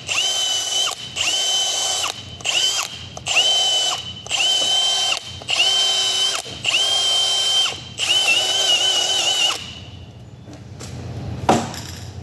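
Cordless impact wrench run in about nine short bursts, each with a steady high whine, working at the valve's soft bolts, which strip easily. The bursts stop a couple of seconds before the end.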